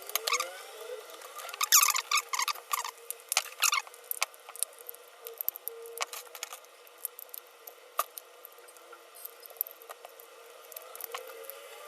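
Plastic squeaking and creaking with sharp clicks for the first four seconds or so, then scattered light clicks and taps: the glued plastic case of an Apple 45 W laptop charger being pried apart.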